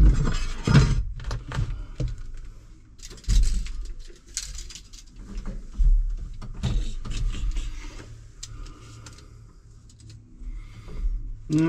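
Irregular clunks, scrapes and rattles of a metal tractor seat base being lifted and shifted on the cab floor, then a steel tape measure being pulled out to measure between the seat rails.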